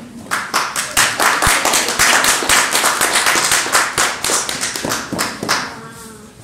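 A small audience clapping by hand: a dense run of claps that starts just after the beginning, holds for about five seconds and then thins out and dies away near the end.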